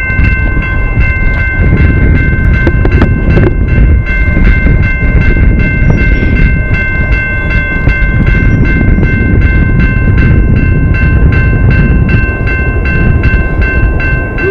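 Railroad grade-crossing bell ringing with rapid, even strikes over the low rumble of a passing train.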